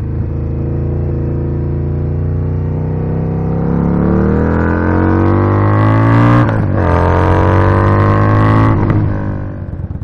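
2018 Indian Scout Bobber's V-twin through a Freedom Performance Combat 2-into-1 exhaust, pulling hard under acceleration. The pitch climbs, drops at an upshift about six and a half seconds in, and climbs again. It then falls away as the throttle closes near the end.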